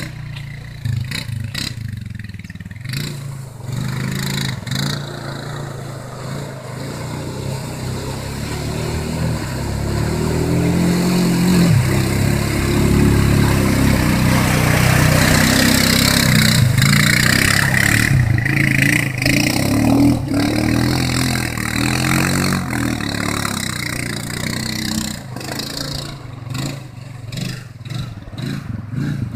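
ATV engine revving up and falling back as the quad drives through a shallow river. Water splashes and surges around the wheels, loudest through the middle.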